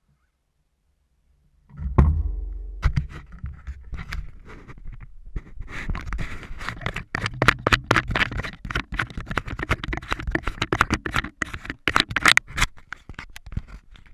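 Handling noise on an action camera: quiet at first, then a loud knock about two seconds in as it is picked up, followed by a dense run of scraping, scratching and clicking from fingers gripping and rubbing the camera housing.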